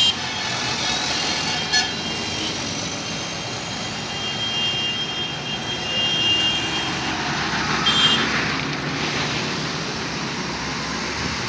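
Trucks and cars passing, a steady rumble of engines and tyres. A high-pitched horn is held for several seconds, and a short horn toot comes about eight seconds in.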